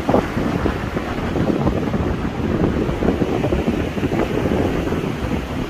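Wind buffeting the microphone: a steady low rumbling noise.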